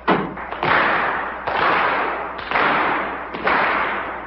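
Boxing-arena crowd noise in rhythmic surges about once a second, each breaking out sharply and fading away, as of spectators clapping or stamping in unison.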